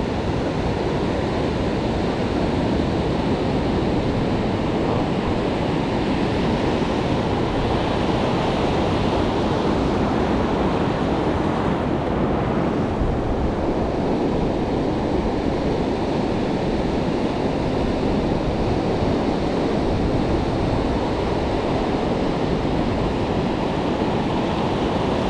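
Ocean surf: waves breaking and foamy wash running up over flat beach sand, a steady rush with no distinct breaks.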